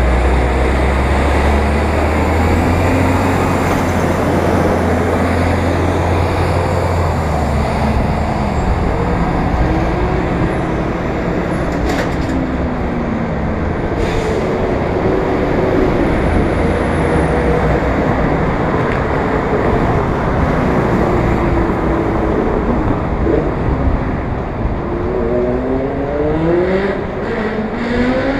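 City street traffic heard from a bicycle-mounted camera: a deep engine rumble from a bus alongside for the first several seconds, then steady wind and road noise as the bike rides on, with passing vehicles' engines rising and falling in pitch.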